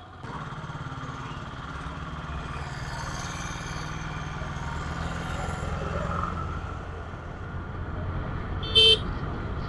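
Honda Dio scooter's single-cylinder engine running at riding speed, with steady road and wind noise. Near the end comes one short vehicle horn toot.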